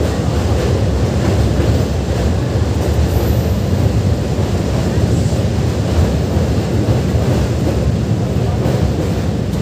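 Express passenger train running across a steel truss railway bridge, heard from inside the coach by an open window: a loud, steady rumble and rattle of the running train, heavy in the low end.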